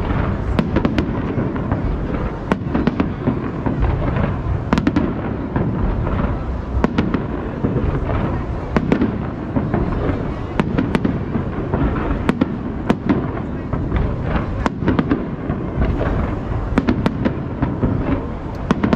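Aerial fireworks shells bursting overhead in a continuous barrage: deep booms running together, with many sharp cracks scattered throughout.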